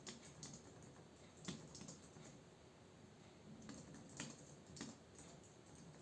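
Faint, slow typing on a computer keyboard: about five separate key clicks at irregular intervals, with pauses between them.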